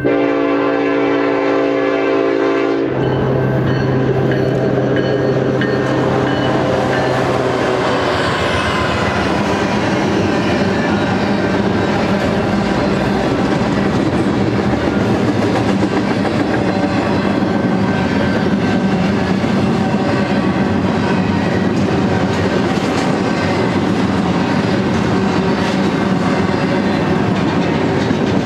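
A freight locomotive horn sounds for the grade crossing and cuts off about three seconds in. The BNSF double-stack container train then rolls past with a steady rumble and the clickety-clack of its well cars' wheels on the rail joints.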